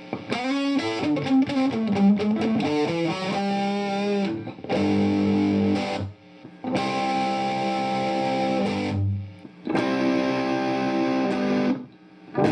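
Electric guitar played through a Marshall DSL40C amp and a Celestion speaker: a quick run of single notes, then three held chords, each left to ring for about two seconds.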